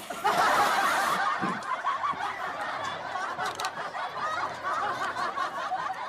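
Chuckling and snickering laughter from several voices at once. It is loudest just after it starts, then eases a little and carries on.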